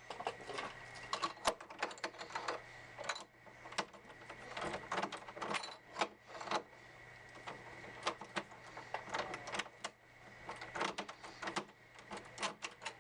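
Metal lockset parts of a door lock being handled and taken apart by hand: irregular small clicks, clinks and taps, a few sharper ones among them.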